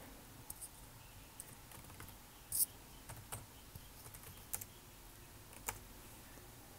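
Computer keyboard being typed on: faint, irregularly spaced key clicks, the loudest about two and a half seconds in.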